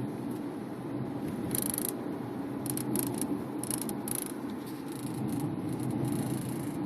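Irregular bursts of short, crisp rattling from a Subaru Forester's sunroof, over steady road rumble inside the cabin. The owner suspects the sunroof's wind deflector, retracted, rattling from body vibration.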